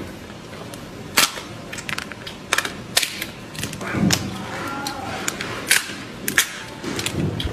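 Cooked spiny lobster tail shell being cracked and pried apart by hand: a run of sharp, irregular cracks and snaps of the hard shell, several seconds apart.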